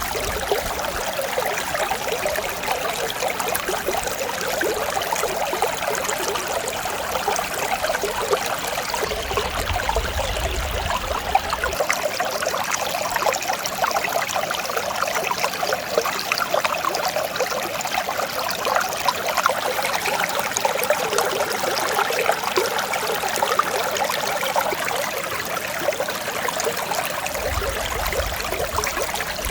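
Mountain stream running steadily: a continuous, calm babble of flowing water.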